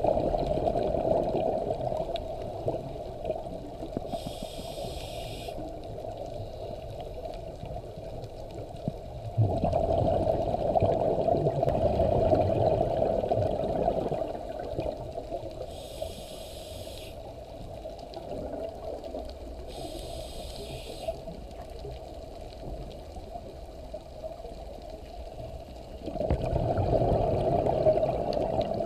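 Scuba regulator breathing recorded underwater. Each exhale is a long rumble of bubbles, heard near the start, about ten seconds in and near the end. Short hissing inhales come between them.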